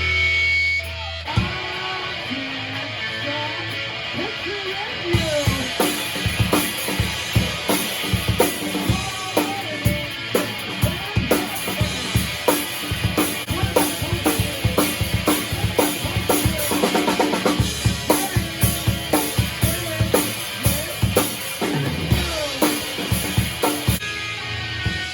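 Rock rehearsal: a drum kit with kick, snare and rimshots playing under electric guitar. Cymbals come in about five seconds in and drop out near the end.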